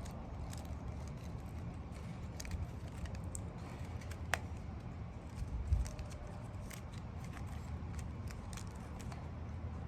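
Faint rustling and small clicks of leaves and a stick being handled as they are bound with a rubber band, over a steady low rumble.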